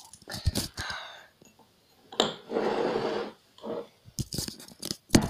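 Handling noise from a tablet being moved close to its microphone: knocks and clicks, a breath-like rush lasting about a second, and a sharp loud knock near the end.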